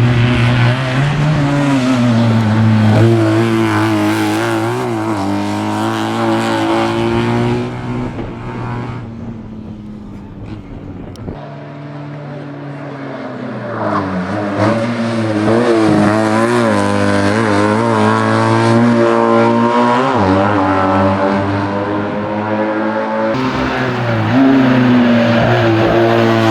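Historic racing car engines revving hard, their pitch climbing and dropping with throttle and gear changes. The sound cuts abruptly from one car to another a few times.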